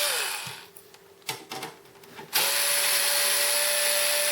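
Power screwdriver backing out case screws: its motor whines, winds down with a falling pitch just after the start, then a few light clicks. The motor whines steadily again from a little past halfway.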